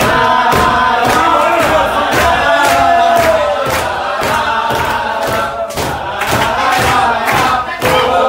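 A group of men chanting a celebration song together, with hand claps keeping a beat of about two a second.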